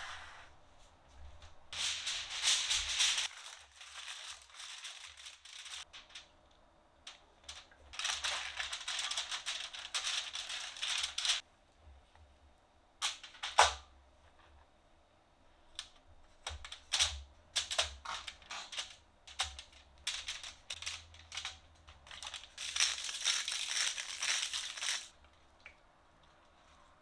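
Aluminium foil crinkling in long rustling stretches as it is handled and pressed into a metal baking pan, with light clicks and taps in between as pieces of acorn squash are set down on the foil.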